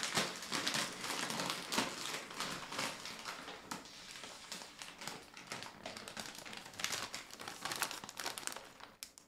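Paper grocery bag rustling and a plastic snack bag of tortilla chips crinkling as a hand rummages and pulls the chip bag out, a dense run of irregular crackles that dies away near the end.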